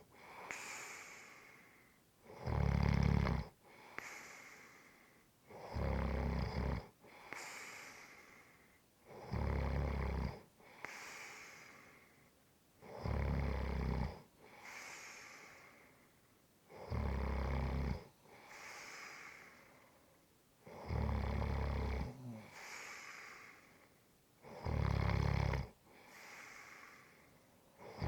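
A person snoring steadily: seven loud, low, rumbling snores on the in-breath, about one every three and a half to four seconds, each followed by a softer, airy out-breath that fades away.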